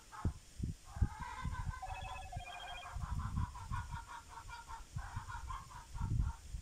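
Domestic chickens clucking in fast runs of short repeated calls, with one longer, higher call about two seconds in. Low dull thumps and rustling sound throughout.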